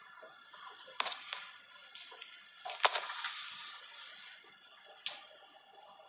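Low room noise with three sharp clicks, about one, three and five seconds in, and a few fainter ones between.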